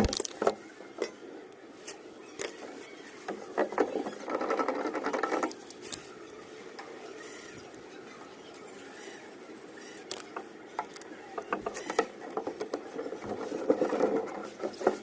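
Plumbing work on plastic pipe fittings: scattered clicks and knocks of handling, with two spells of steadier rasping, about four seconds in and again near the end.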